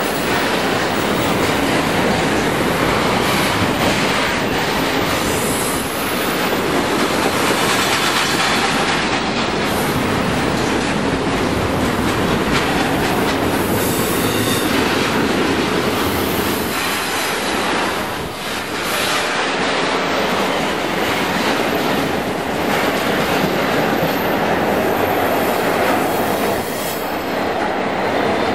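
Double-stack container freight train rolling on curved track: a steady, loud rumble and rattle of cars and wheels on the rail. A thin wheel squeal rises briefly about halfway through and again near the end.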